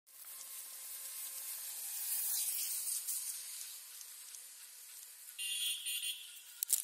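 High, steady hiss of wind and road noise from a moving vehicle, swelling about two seconds in. Just past five seconds a short buzzing tone sounds for under a second, and a sharp click comes near the end.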